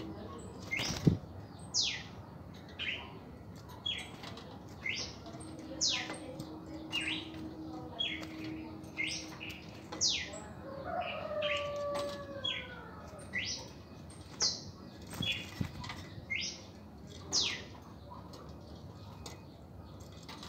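Caged red-crested cardinals calling: a run of short, sharp, high notes, many falling steeply in pitch, about one or two a second, which stop a few seconds before the end. A single knock sounds about a second in.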